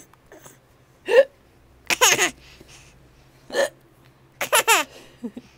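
A person hiccuping twice, about a second apart from each burst of laughter that follows: two sharp single hiccups, each answered by a short burst of laughter.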